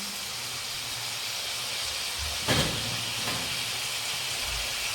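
Chopped onion and tomato sizzling in hot oil in a pan, a steady hiss, with a single knock about two and a half seconds in.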